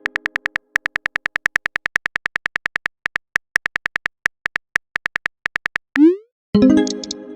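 Chat-app typing sound effect: a fast run of small beeping key clicks, with short pauses, as a message is typed out. About six seconds in, a quick rising bloop as the message is sent, then a short synthesized chime as a reply comes in.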